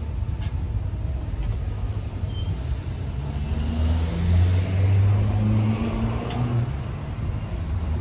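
Street traffic: a motor vehicle's engine passes close by, growing louder to a peak about halfway through and then fading, over a low steady traffic rumble.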